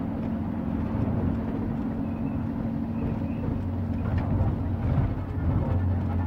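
A vehicle's engine running steadily under road noise, with a low hum that drops to a deeper pitch about five seconds in.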